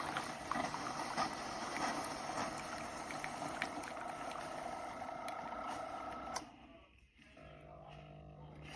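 Chefman single-serve coffee maker brewing: a steady hissing, crackling sputter of water being heated and pushed through, which stops about six and a half seconds in. A low steady hum follows.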